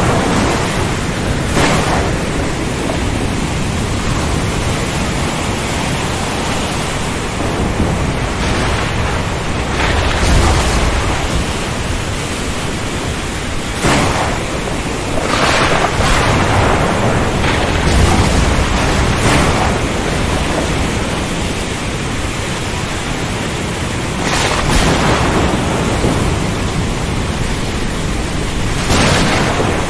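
Thunderstorm at sea: a steady rush of wind and waves, broken every few seconds by sharp thunder cracks, with deep rolling rumbles of thunder a third of the way in and again past the middle.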